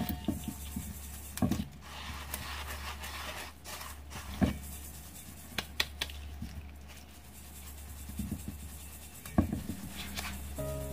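Damp rice flour being rubbed by hand through a stainless steel mesh sieve, a soft scratchy rubbing broken by several sharp knocks, to break up lumps.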